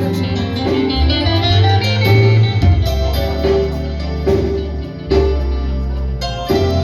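Instrumental music led by guitar over sustained bass notes that change every second or two.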